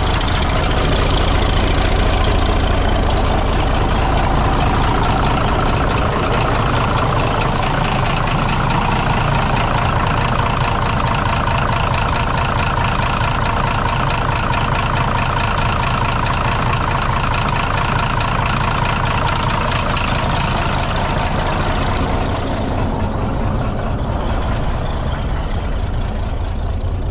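International Harvester TD-24 bulldozer's 1091-cubic-inch UD-1091 pre-cup diesel engine running steadily on diesel after its gasoline start, firing evenly on all cylinders. It has a mild diesel rattle and grows a little fainter and duller after about twenty-two seconds.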